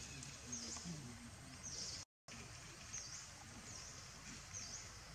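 Quiet outdoor ambience with a high chirping call repeated about once or twice a second. The sound cuts out completely for a moment about two seconds in.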